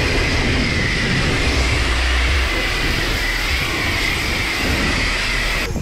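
High-pressure rinse wand of a self-serve car wash spraying water onto a car's body panels: a loud, steady hiss of spray that stops abruptly near the end.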